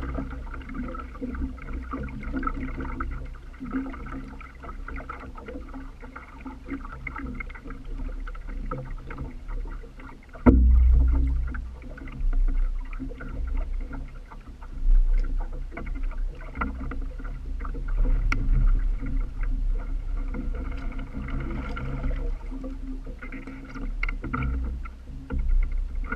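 Lake water sloshing and splashing against the hull and paddle wheel of a small boat. There is a sudden heavy slap about ten seconds in, and uneven splashes follow.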